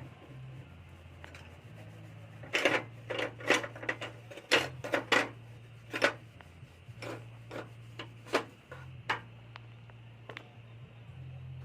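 A run of irregular sharp clicks and knocks, thickest in the first half and thinning out later, over a steady low hum.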